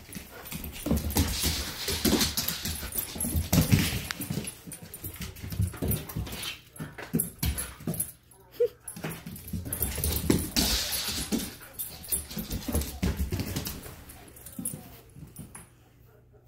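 Moyen poodle chasing a laser dot: claws skittering and scrabbling on a hard floor in quick irregular bursts, with brief dog whimpers, quieter near the end.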